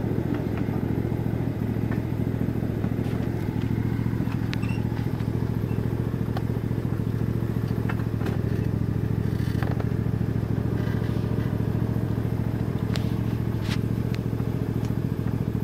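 Ride-on miniature railway train running along its track: a steady engine drone, with a few sharp clicks and clatters from the running gear scattered through it.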